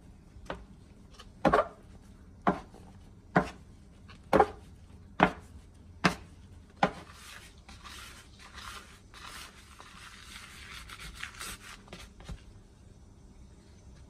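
Plastic bench scraper working bread dough on a floured worktop: about eight sharp knocks, roughly one a second, as the scraper and dough strike the counter during folding. Then several seconds of scraping and rubbing as the dough is rounded and the scraper drags across the worktop.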